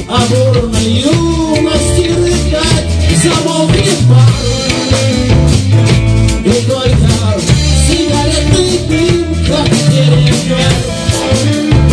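Band music with a steady drum-kit beat and bass under a sliding lead melody line.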